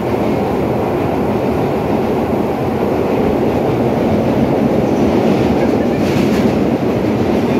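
Vintage R1/R9-series New York subway car running along the track, heard from inside the car: a loud, steady rumble of wheels and running gear that grows a little louder in the second half.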